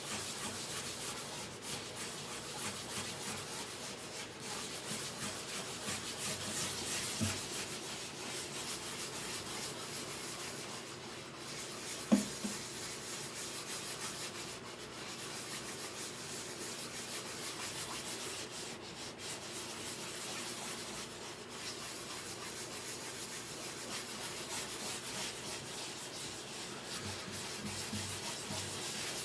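Steady back-and-forth hand sanding on the wood of a guitar under repair, with one sharp knock midway.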